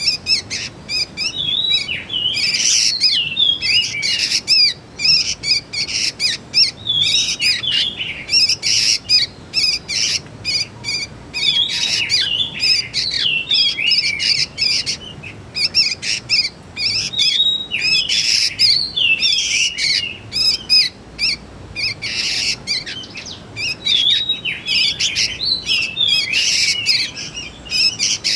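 Juvenile sooty-headed bulbul calling without pause: a busy stream of short, high chirps and quick up-and-down whistled notes.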